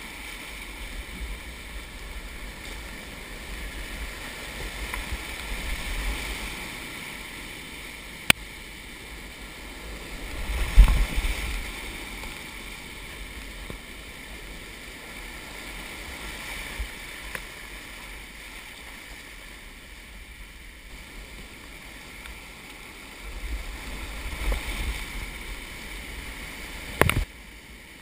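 Rushing whitewater of a steep rocky rapid, a steady roar heard close up, with a few knocks and a loud thump about eleven seconds in.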